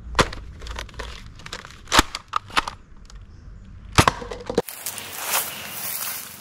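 Nerf Mega foam dart blaster firing three sharp snaps about two seconds apart, with smaller clicks and rattles between the shots. After a sudden cut, a little over four seconds in, comes a soft rustling of grass and dry leaves.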